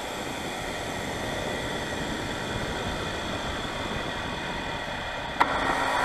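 Radio-controlled model jet's turbine on the ground: a steady rushing hiss with faint high whines. Near the end comes a sharp click, then a steady hum and a whine rising in pitch, as the turbine spools up.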